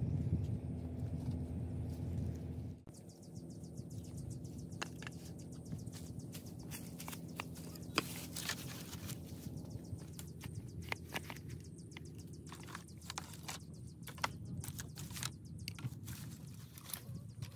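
Scattered light clicks and knocks of green bamboo tubes and dry bamboo sticks being handled and set upright on a pile of firewood, with a sharper knock about eight seconds in. A louder low background stops abruptly about three seconds in.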